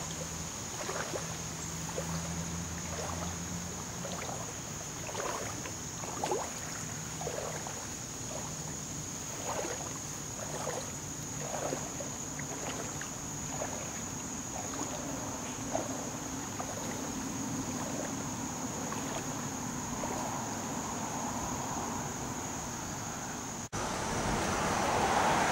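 Outdoor ambience beside floodwater in woods: a steady wash of noise with a faint, thin, steady high whine and scattered short soft sounds. About two seconds before the end it cuts to a louder rushing noise.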